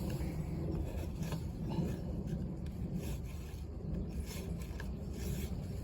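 Irregular rubbing and scraping as a wooden stick packs dry chaff into a motorcycle silencer, over a steady low rumble.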